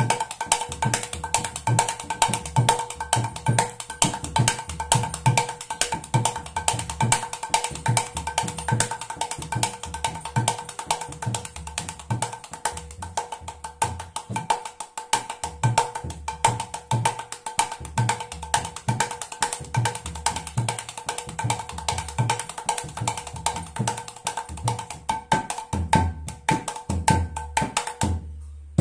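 Mridanga being played by hand in a fast, continuous rhythm. Quick strokes on the small treble head ring at a steady pitch, mixed with regular deep bass strokes on the large head. The playing stops just before the end.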